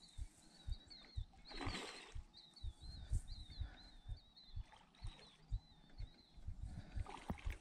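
Handling noise from a fishing rod and reel being worked while playing a fish, heard as irregular low knocks two to three times a second. A short rushing noise comes about two seconds in. Repeated high chirping calls sound in the background.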